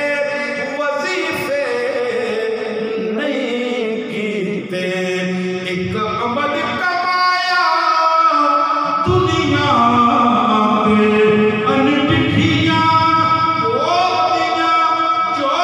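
A man singing a naat, a devotional praise song to the Prophet, in long held notes that slide and waver in pitch.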